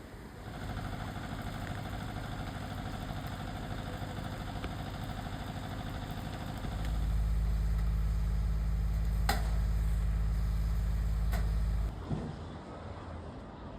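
An engine running steadily. About seven seconds in it becomes louder and deeper, with two sharp clicks, then drops away abruptly near twelve seconds.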